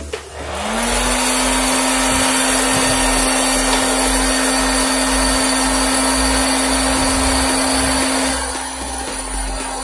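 Electric hot-air popcorn maker switched on: its fan motor spins up with a quickly rising hum, then settles into a steady hum and a rush of blown hot air through the kernel chamber. The sound gets a little quieter near the end.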